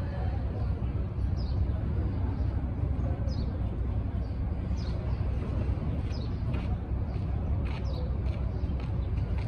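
A bird repeating a short, high call that falls in pitch, about once every second and a half, over a steady low outdoor rumble.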